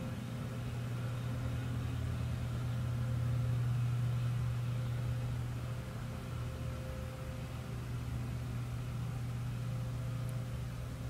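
Steady low engine drone coming in through a window, swelling slightly a few seconds in and then easing back.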